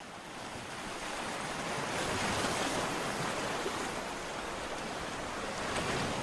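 Sea water rushing: a steady hiss of waves that swells over the first couple of seconds, then holds.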